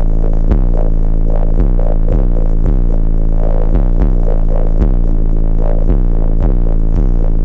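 A rap track's deep synth bass line played loud through a car audio system with four Sundown NSV4 15-inch subwoofers in a bandpass enclosure, the beat striking about twice a second.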